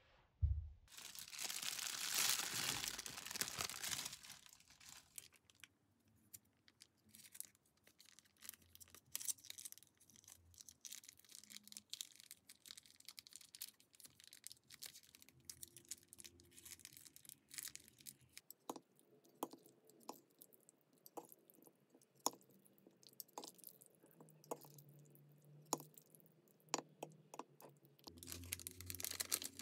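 Plastic food packaging torn open and crinkled for a few seconds near the start, then faint handling sounds. From about two-thirds of the way in comes a run of light clicks, wooden chopsticks tapping a ceramic bowl as udon is tossed in sauce.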